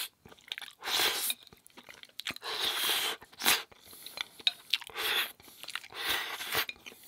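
A person chewing and crunching food in about five short bursts, with small mouth clicks between them.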